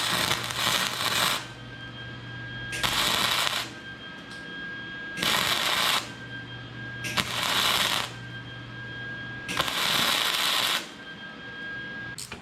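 Electric welder laying five short welds, each a crackling burst of about a second, filling in a stop on the clutch mechanism. A steady hum from the welder carries on between the bursts.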